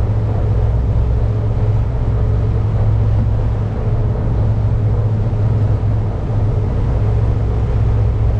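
Boat engine running steadily, a loud, even low drone, as heard on board.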